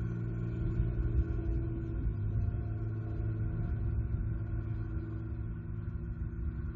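Steady low mechanical rumble with a constant hum, like a running engine or machinery.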